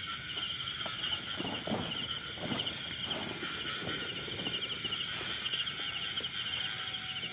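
Night insects calling steadily: a continuous high, fast-pulsing trill. Beneath it are irregular footsteps and rustling through grass and weeds on an earth path.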